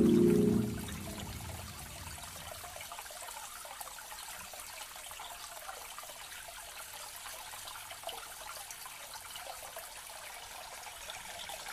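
Background music fading out about a second in, leaving a steady, soft water ambience: an even, fine hiss like light rain or trickling water.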